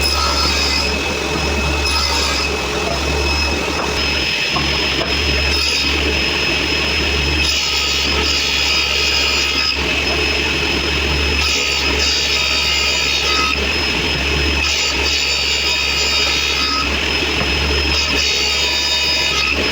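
Table saw running steadily, its blade cutting through wood in four separate passes in the second half, each adding a louder hiss over the motor's steady hum.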